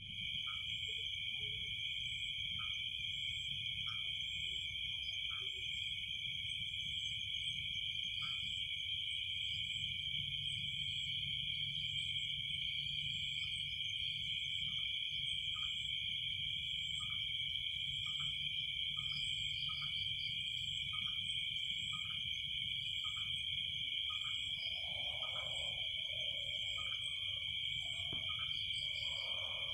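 Night ambience dominated by a steady, unbroken high trilling of insects. Short high calls repeat irregularly over it every half second to a second and a half, and softer calls join near the end.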